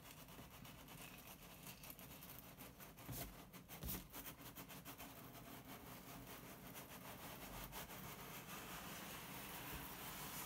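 Faint rubbing and sliding of cardboard as a printed retail box is lifted up off a plain inner carton, with a couple of soft knocks about three to four seconds in.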